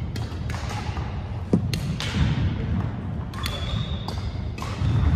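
Badminton play on a wooden gym floor: irregular sharp racket-on-shuttlecock hits and foot thumps, with sneakers squeaking on the floor from about the middle on.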